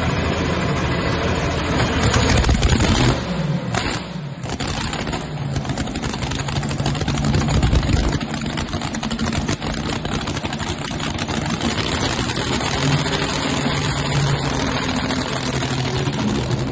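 Supercharged V8 engine of a modified pulling tractor running at idle through open exhaust stacks. It is revved twice, about two seconds in and again around eight seconds, its pitch falling back to idle after the first rev.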